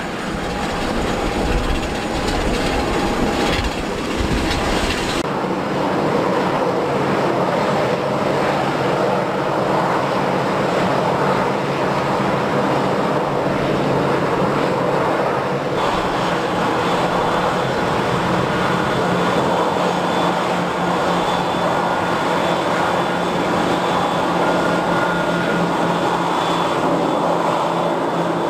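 Airbus A320 jet engines running steadily at low power: a continuous whine and rumble from the airliner during pushback and taxi. The sound changes abruptly twice, about five and sixteen seconds in.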